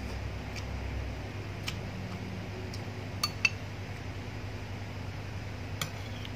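Metal spoon clinking against a ceramic bowl and plate, with two sharp clinks a quarter-second apart about three seconds in and another near the end, over the steady hum of an electric fan.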